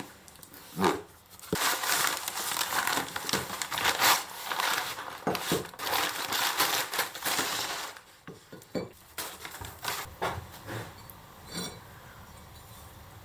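Metal scraping and rubbing with clinks and knocks, as an old axe head is handled and worked on; after about eight seconds it thins to a few scattered clinks.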